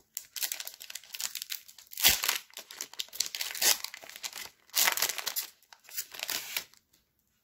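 Foil wrapper of a Pokémon trading card booster pack being torn open and crinkled by hand, in a run of crackling bursts, loudest about two seconds in.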